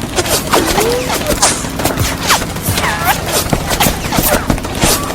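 A rapid, irregular barrage of sharp cracks and impacts, like debris pelting and things breaking, with a few short squealing or yelping tones among them.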